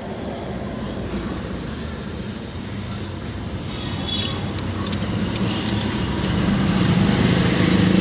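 A motor vehicle engine running steadily, growing louder over the second half.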